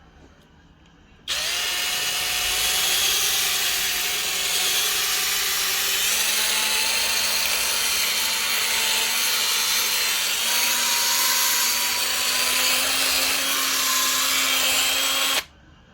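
Small electric drill running steadily for about fourteen seconds as it drills into a die-cast toy car. It starts about a second in, its whine rises slightly in pitch partway through, and it stops abruptly near the end.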